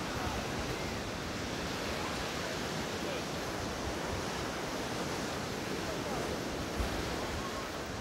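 Steady rush of surf breaking on a sandy shore, mixed with wind on the microphone, with faint distant voices now and then.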